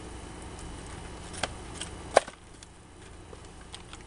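Handling of a packaged fishing lure and a cardboard box: a few sharp clicks and taps, the loudest a single knock about two seconds in, then lighter ticks.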